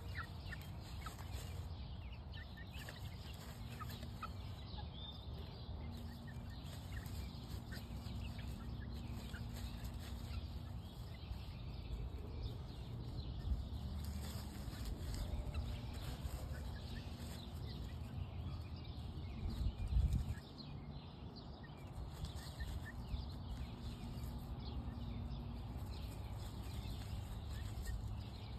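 A flock of young hens clucking softly as they forage, with small scratching and rustling ticks over a steady low rumble. One louder low bump comes about two-thirds of the way through.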